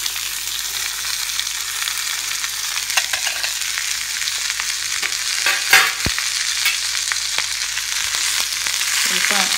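Chopped long beans sizzling as they land in hot oil tempered with mustard seeds, garlic and dried red chillies in a kadai, a steady frying hiss that starts at once. A few knocks against the pan cut through it, the loudest a little past halfway.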